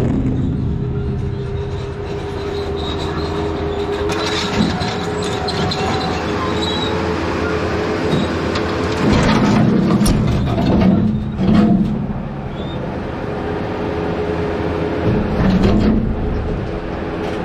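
Loader engine running with a steady hydraulic drone while its bucket tips broken concrete slabs into a steel dump-truck bed. The slabs crash and scrape into the box several times.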